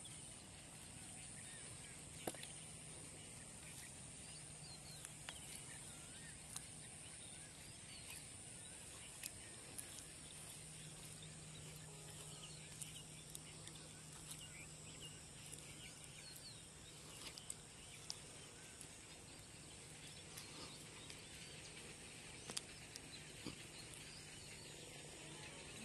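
Faint rural outdoor ambience: scattered faint bird chirps over a steady high hiss and a low steady hum, with a few sharp clicks here and there.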